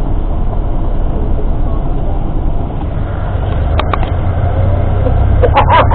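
Tour bus running along the road, heard from inside the cabin as a steady low rumble of engine and road noise. Faint voices come through briefly about four seconds in and again near the end.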